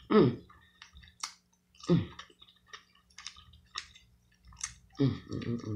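Close-up eating sounds of seafood being chewed: wet lip smacks, squishes and small clicks. A few short hummed "mm" sounds of enjoyment come just after the start, about two seconds in, and near the end.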